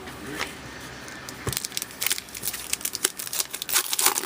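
Foil wrapper of a trading-card pack being torn open and crinkled, a rapid run of sharp crackles from about a second and a half in.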